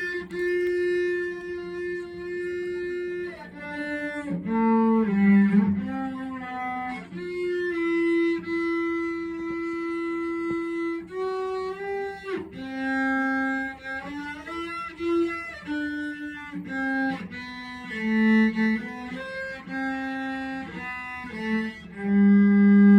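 Cello being bowed: a slow melody of long held notes with a few slides between them, ending on a long, loud low note.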